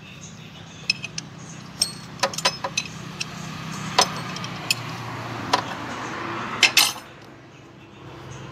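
Metal clinks and taps of a spanner against engine bolts and timing-belt parts: a scattered run of sharp clinks, the loudest pair near the end, over a steady low hum.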